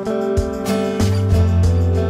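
Instrumental background music with plucked notes over held tones.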